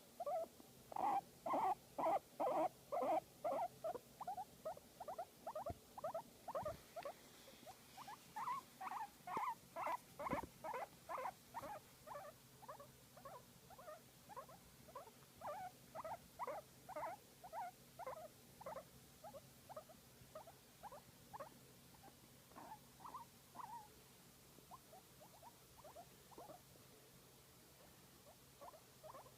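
A guinea pig making a long run of short, squeaky calls, about three a second while it is being massaged. The calls are loudest in the first few seconds and grow fainter and more spaced toward the end.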